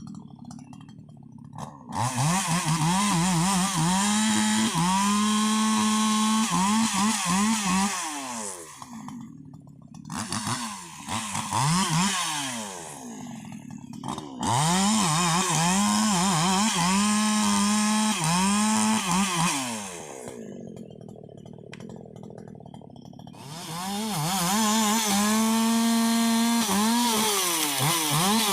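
Husqvarna 288 XP two-stroke chainsaw cutting rubberwood: it is revved to full throttle three times for several seconds each, the engine note dipping and wavering as the chain works through the wood, and drops back to idle between cuts.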